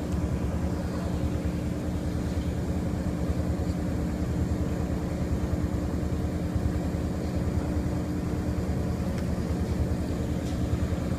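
Laundromat washing machine in its final spin cycle, the drum spinning fast with a steady drone and a constant hum, sounding like an airplane.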